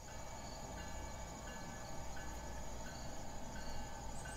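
HO model railroad layout with a train running: a steady hum, with a short chime-like ring repeating about every 0.7 seconds.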